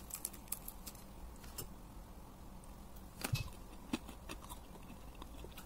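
Crisp batter of fried eggplant crackling in a few sharp clicks as it is handled by hand. A single dull knock comes about three seconds in.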